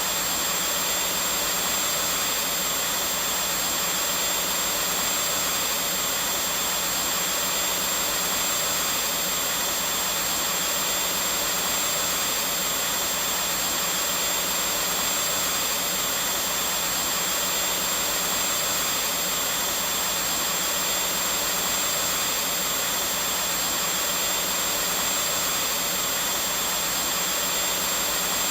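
Vacuum cleaner running steadily: an even, unbroken rushing of air with a thin, high, constant whine from the motor.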